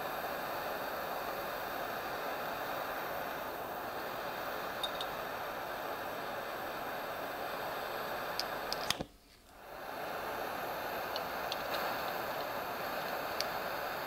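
Steady hiss of a small butane gas soldering torch, with a few faint ticks. The hiss breaks off for about a second a little past the middle, then resumes.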